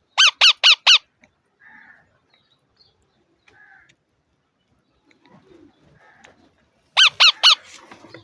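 Young parrot calling: a quick run of four loud, high, arching calls, then a few soft faint chirps, then another fast run of three or four loud calls near the end.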